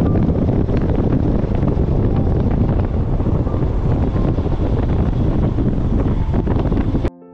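Wind buffeting the microphone of a camera on a moving motorcycle: a loud, steady rumbling rush. It cuts off abruptly about seven seconds in.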